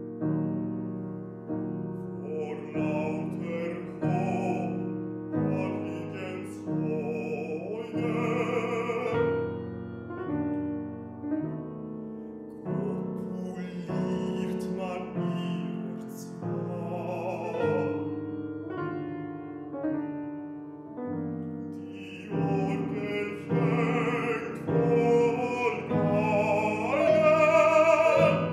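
Baritone singing a classical art song in phrases with vibrato, accompanied by a grand piano; the voice grows loudest near the end.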